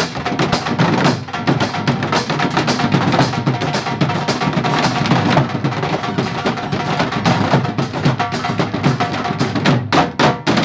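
A percussion ensemble playing a fast, dense rhythm on makeshift drums: a dholak, tin boxes, a plastic water drum and buckets struck with sticks. The playing has a couple of brief gaps near the end.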